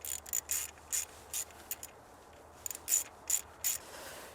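Ratchet wrench snugging down the 10 mm bolt that holds an ignition coil: short, irregular spurts of high-pitched pawl clicking, one per back-swing, in two clusters about two seconds apart.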